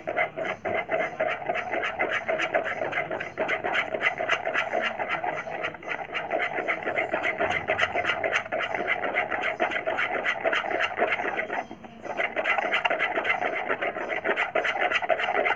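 Fast, continuous back-and-forth scraping and rubbing strokes of a hand tool on a hard surface, with a brief break about three-quarters of the way through.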